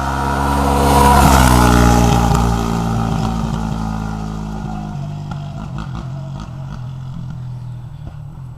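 Yamaha YFZ450 quad's single-cylinder four-stroke engine passing by under throttle, growing louder for about a second, then dropping in pitch and fading as it moves away.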